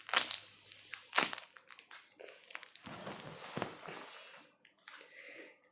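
Crinkling and rustling handling noises as a squishy toy is picked up and handled, with a few sharper crunches.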